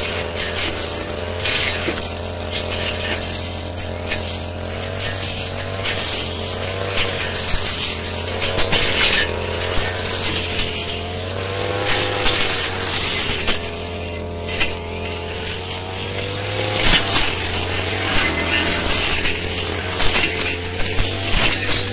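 Brush cutter engine running at high speed, its pitch dipping and rising every few seconds as the blade bogs into and clears undergrowth, with short scraping and slashing hits from the cutting.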